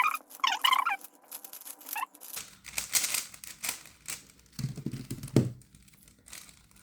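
Plastic 3x3 Rubik's Cubes being turned fast by hand: a rapid, uneven run of small clicks and rattles as the layers snap round.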